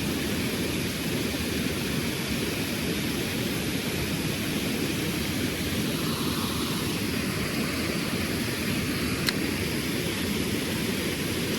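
Steady rushing of a rain-swollen creek and its waterfalls, an even roar heaviest in the low range and unchanging throughout.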